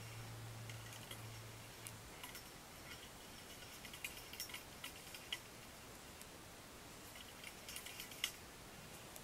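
Faint clicks and crinkles of plastic lanyard lace (gimp) being handled and pulled tight, coming in three short clusters. A low hum stops about two seconds in.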